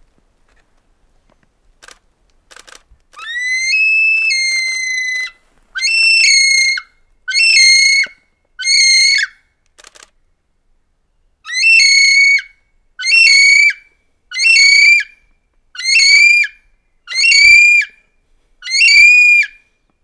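A kiwi calling: a loud series of about ten shrill whistles. The first is long and rising; the rest are short, each jumping up in pitch and then falling, with a short pause after the fourth.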